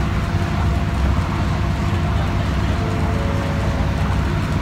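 Sightseeing boat's engine running steadily, a low drone with a hiss above it, heard from inside the passenger cabin.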